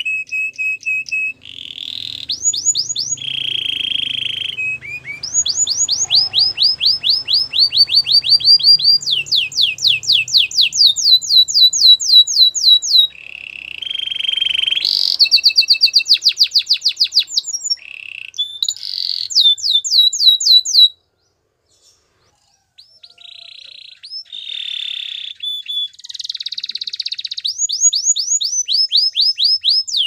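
Canary singing: long trills of fast repeated rising notes alternate with short, steady whistled tones. There is a brief pause about two-thirds of the way through.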